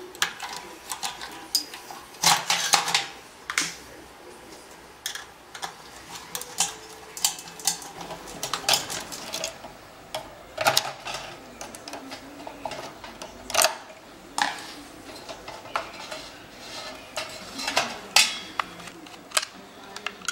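Irregular metallic clicks, knocks and clinks of a cross-head screwdriver and cable connectors against the control unit and the stainless steel pot of an FJ 15 mini pasteurizer, as the cables are pulled off and the bolts unscrewed.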